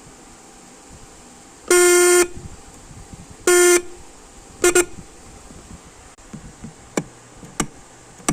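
Single-note car horn honked: a half-second blast, a shorter one, then two quick taps. A few sharp clicks follow near the end.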